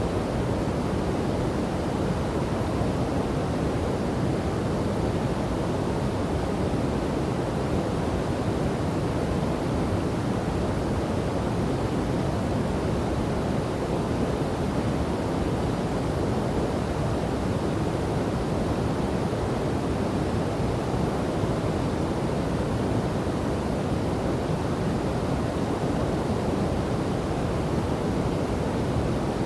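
Waterfall and river water rushing in a steady, even roar that sits low and deep, with no changes.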